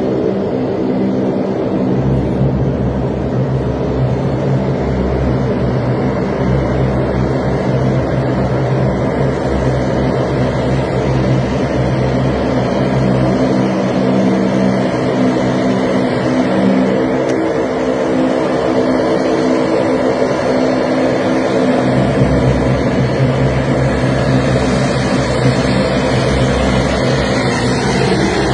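Twin-engine turboprop airliner's engines and propellers droning steadily with several held tones as the plane taxis toward the listener. The pitch slides down slightly near the end as the aircraft turns.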